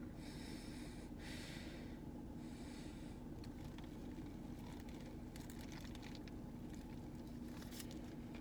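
A person eating a chicken sandwich, breathing out through the nose three times in the first three seconds, then faint small clicks of chewing. A steady low hum runs underneath.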